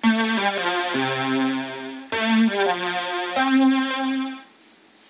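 String-synthesizer chords from the JANO string synthesizer, a Solina-style string ensemble sound generated on an Arduino Nano, played live from a keyboard. Two phrases of sustained chords with moving notes, the second beginning about two seconds in, die away a little before the end.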